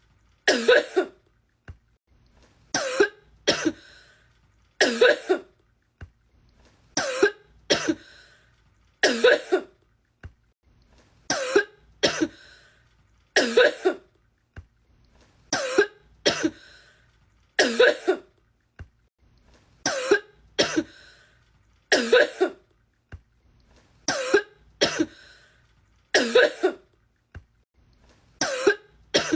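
A woman coughing in a fit, looped: a short bout of usually two hard coughs, repeating about every two seconds.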